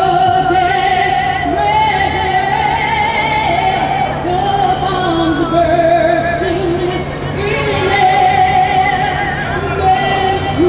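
Music with singing: long, held sung notes that waver in pitch, one after another.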